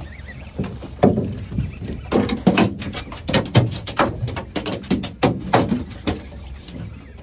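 A run of irregular short knocks and thumps, several a second, from about a second in until shortly before the end.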